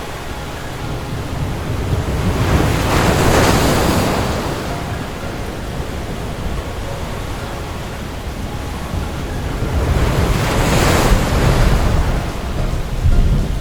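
Rough sea in a storm: two big waves surging and breaking, one a few seconds in and one later, over a steady low rumble of wind and water.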